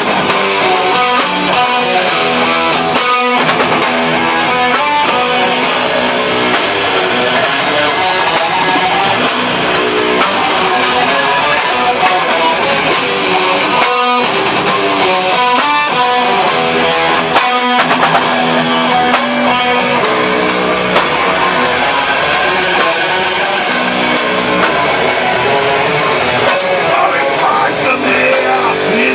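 Metal band rehearsing: distorted electric guitars, bass guitar and drum kit playing loud and steadily.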